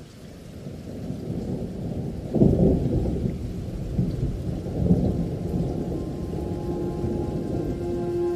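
Thunderstorm background track: deep rolling thunder that fades in and swells twice, about two and a half and five seconds in. Near the end a held musical note enters.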